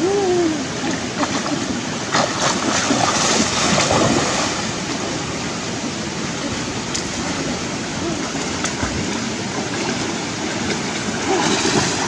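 Muddy, fast-flowing stream running steadily, with splashing from someone wading and swimming through the water. The splashing picks up a couple of seconds in and again near the end, where a woven basket is dragged through the water.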